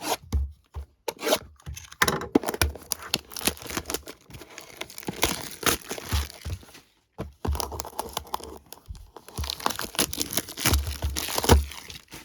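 A 2022 Topps Allen and Ginter blaster box being torn open: plastic wrap and cardboard ripping and crinkling in repeated bursts, with a short pause about seven seconds in.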